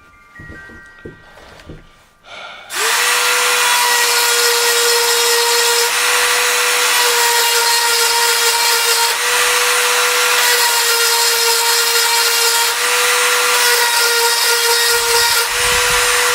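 Dremel-style rotary tool with a grinding stone, sharpening the cutters of a worn chainsaw chain. After a few soft handling knocks, it starts about three seconds in. It runs at a steady high whine with a gritty grinding hiss, its pitch dipping slightly now and then, and winds down at the very end.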